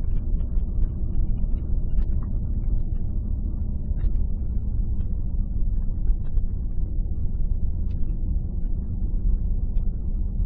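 Car driving on a winding paved road, heard from inside: a steady low rumble of engine and tyre noise, with a few faint ticks.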